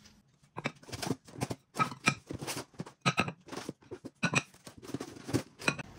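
Ceramic plates handled and set down in a stack on a wooden table: a string of light, irregular clicks and knocks.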